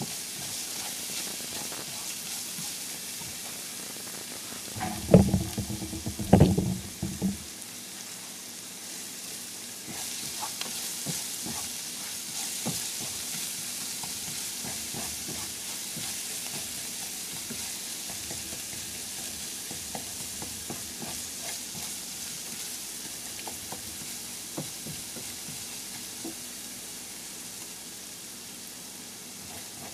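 Minced garlic sizzling as it fries in a nonstick frying pan, stirred with a plastic spatula that scrapes and ticks against the pan; the garlic is browning toward golden. A short burst of loud clattering knocks comes about five seconds in.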